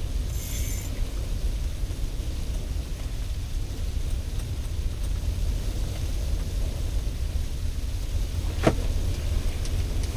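Steady low rumble with a faint hiss inside a pop-up ice-fishing shelter, where a portable propane heater is burning. A brief high ringing tone comes near the start, and a single sharp click near the end.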